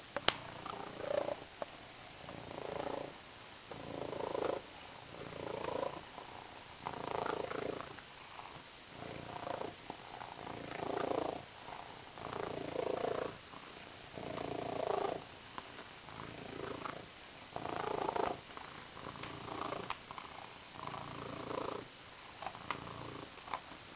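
Domestic cat purring, swelling and fading in a steady rhythm about every one and a half seconds as she breathes in and out, with a few sharp clicks.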